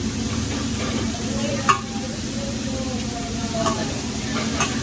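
Chicken breasts sizzling on a hot hibachi flat-top griddle, with a few sharp clicks over the steady frying, the loudest about a second and a half in.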